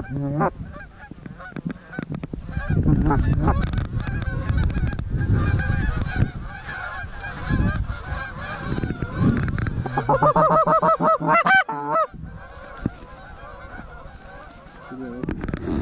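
Goose honks and clucks, many calls overlapping, with a fast, regular run of repeated honks about ten seconds in, then fading down.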